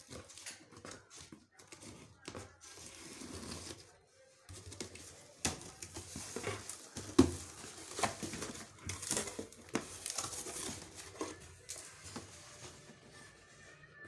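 Scissors slitting the packing tape on a cardboard shipping box, then the box flaps being pulled open and handled: irregular scraping, tearing and rustling of cardboard with scattered knocks, the loudest a sharp knock about seven seconds in.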